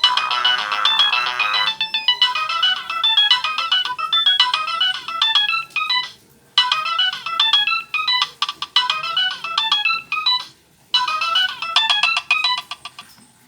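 Nokia ringtone melodies played through the small speaker of a Samsung SGH-A157 flip phone. One tune ends a couple of seconds in and the next begins, looping its short melody with two brief pauses between repeats.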